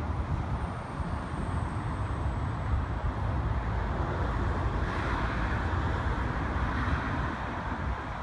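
Road traffic with wind rumbling on the microphone: a steady low rumble, and a car passing close that swells about five seconds in and fades near the end.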